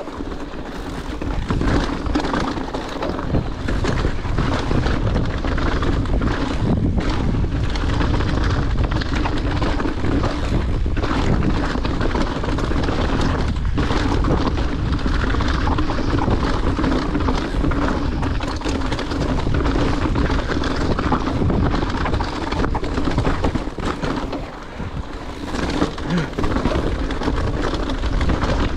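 Wind buffeting a mountain biker's action-camera microphone, with the tyres rolling over rocky dirt singletrack and the bike rattling over bumps in frequent short knocks.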